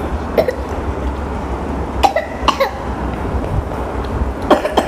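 A child coughing in a few short, separate bursts while eating noodles, with a steady low hum underneath.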